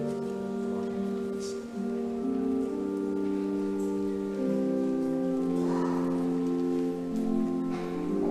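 Organ music of slow, held chords that change about once a second, with a few brief rustles.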